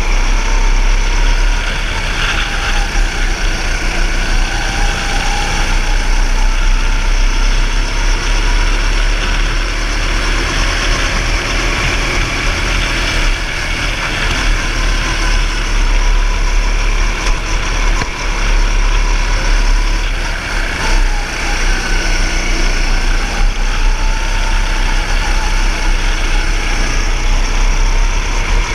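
Go-kart engine running at speed, its pitch rising and falling as the kart speeds up and slows for corners, heard from the driver's seat with a low rumble of wind on the microphone.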